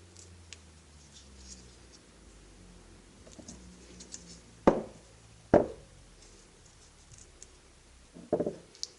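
Hands working on a cordless-tool battery pack during a cell replacement: light scratching and small clicks, two sharp knocks about halfway through, and a quick cluster of knocks near the end.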